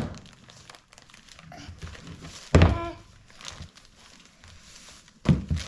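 Gift wrapping and packaging crinkling as a present is opened by hand, with a couple of sudden thunks, one about two and a half seconds in and one near the end.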